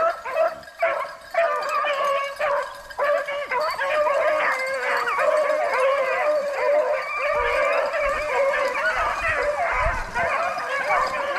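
A pack of rabbit hounds baying together, many voices overlapping in a steady chorus of howls and yips: the dogs are on a rabbit's trail and running it.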